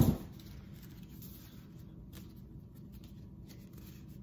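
A sharp knock right at the start, then quiet rustling and handling of the paper and cardboard gift packaging as it is opened, with a few faint clicks over a faint steady hum.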